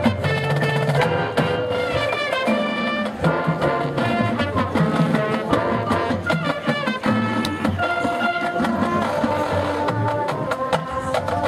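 High school marching band playing its field show: brass holding and moving between chords, with sharp drum and front-ensemble percussion strokes throughout.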